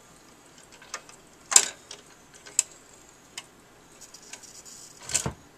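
1968 Magnavox console record changer running through its change cycle with a string of mechanical clicks and clacks as the next 45 drops from the spindle onto the platter. The loudest clack comes about a second and a half in, and a heavier thump follows near the end.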